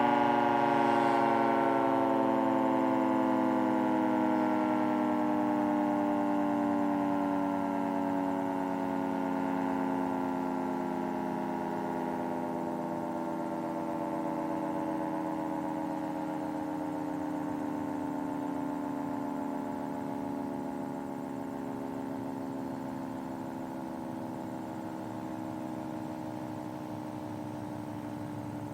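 Federal Signal 2T22 dual-tone rotating warning siren winding down after its signal ends: a chord of two tones sliding slowly and steadily lower and fading as the rotors coast down.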